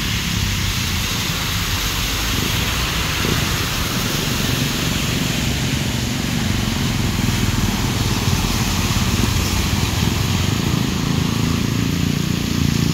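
Traffic on a flooded street: car and motorcycle engines and tyres running through standing water, a steady wash of noise with a low rumble underneath.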